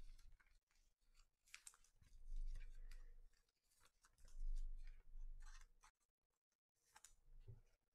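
Faint handling of chrome trading cards: soft swishes and clicks as cards are picked up and slid across a mat, with a few low bumps of hands against the table.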